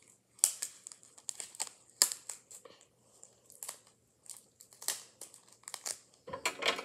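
Clear adhesive tape being handled and stuck onto paper: irregular sharp crackles and crinkles, with a denser run of crackling near the end as a strip of tape is pulled and handled.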